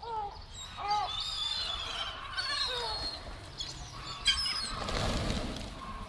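Gulls calling repeatedly in short rising and falling cries. About five seconds in comes a burst of wing flapping as a flock of pigeons takes off.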